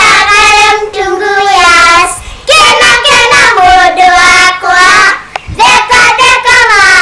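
A child singing in a high voice: held, wavering notes in short phrases, with brief breaks for breath about two seconds and five and a half seconds in.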